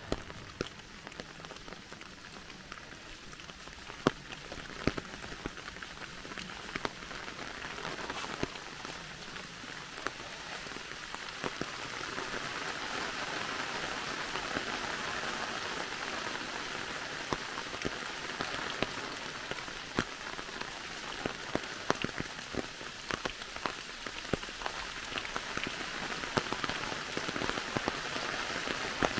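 Rain falling in a forest: a steady hiss of rain with many scattered sharp drops. It grows louder about twelve seconds in.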